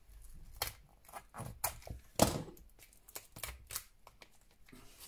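Clear plastic wrap on a small cardboard box being snipped with scissors and peeled off by hand: a scatter of sharp snips and crinkles, the loudest a little past two seconds in.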